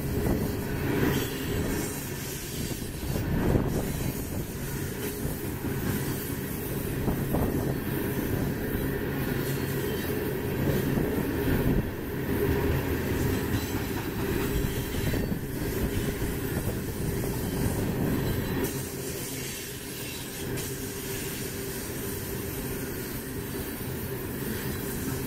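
Coal cars of a freight train rolling steadily past: a continuous rumble of steel wheels on rail, with clacks as the wheels cross rail joints.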